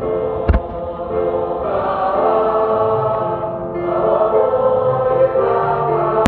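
Choral music with sustained sung chords. A single firework thud cuts in about half a second in.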